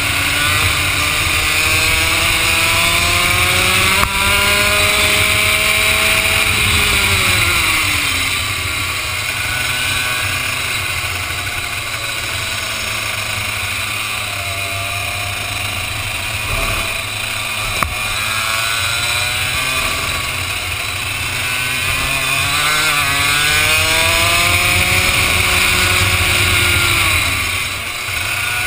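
Vortex ROK 125cc two-stroke kart engine under full throttle, its pitch climbing steadily down the straight, dropping sharply about eight seconds in as the driver lifts for a corner, then climbing again through the second half and dropping off near the end. Wind noise rushes over the helmet-mounted camera.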